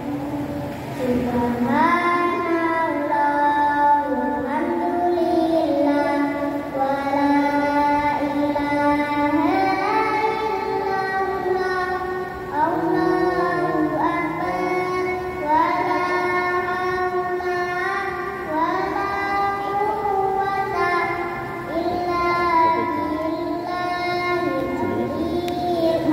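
A young boy singing an Islamic devotional chant (pujian) into a handheld microphone, with long held notes that slide up into each new phrase.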